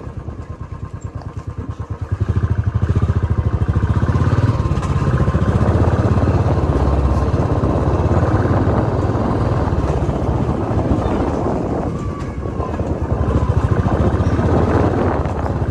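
Royal Enfield Classic 350 BS4's single-cylinder engine with its stock exhaust, heard while riding: a fast, even thump that grows much louder about two seconds in as the throttle opens, eases off briefly around twelve seconds, then pulls hard again.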